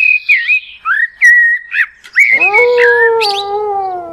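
Logo-intro sound effects: a run of quick whistled chirps that bend up and down, then, from about two seconds in, a long held tone with overtones that slides slowly down in pitch.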